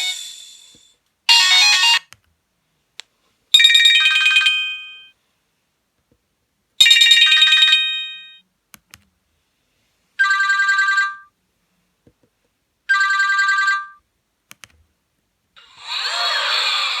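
Nokia 1280 mobile phone playing monophonic ringtones: about six short bursts of high electronic beeping notes, each around a second long with silent pauses between them. The last burst is buzzier and less clearly pitched than the others.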